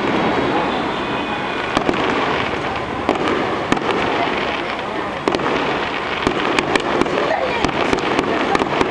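Fireworks display: aerial fireworks bursting in a long run of sharp cracks and bangs, many close together, over a dense continuous rumble and crackle.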